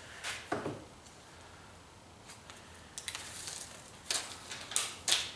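Aluminium foil tape being pulled off its roll in several short peeling bursts, mostly in the second half, with quiet pauses between.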